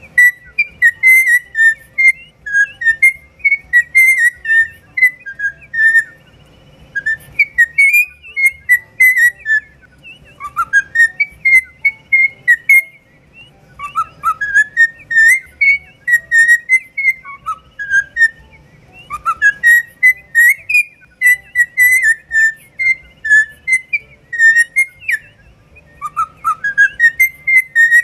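Cockatiel whistling its song: phrases of clear, warbling whistles, many starting with an upward slide, repeated over and over with short pauses between phrases.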